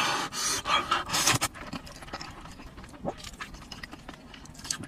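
A man panting and slurping while eating very spicy rice noodles: sharp, hissing breaths through an open mouth against the chili heat, loudest twice in the first second and a half, then quieter mouth sounds.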